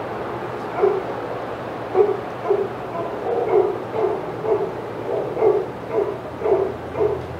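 A dog barking over and over, about two barks a second, after a short pause at the start.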